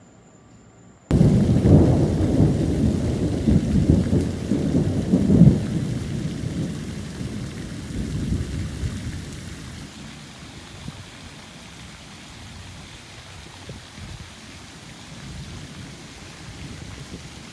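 Thunder rumbling, starting abruptly about a second in, loudest over the next few seconds and fading away by about ten seconds in. A steady hiss of rain runs underneath.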